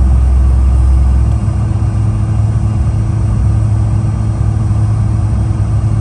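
Jet airliner's turbofan engines heard from inside the cabin while taxiing: a steady, loud deep drone with a thin high whine on top. About a second and a half in, the lowest rumble drops away.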